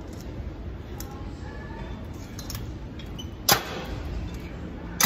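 Steady gym room noise, with one sharp metallic clank of weight-machine equipment about three and a half seconds in and another right at the end.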